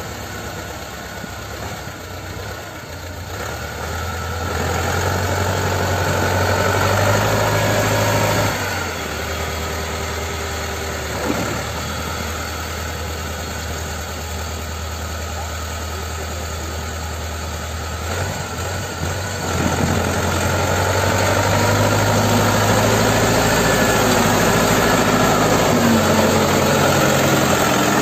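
T-40 tractor diesel engine running under load as a stuck tractor is towed out of snow, the revs rising a few seconds in, dropping back near the middle, and climbing again about two-thirds of the way through.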